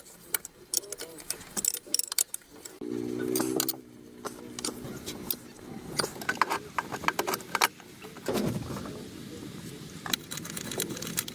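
Repeated light metallic clinks and rattles, with a short pitched sound about three seconds in and a falling one about eight seconds in.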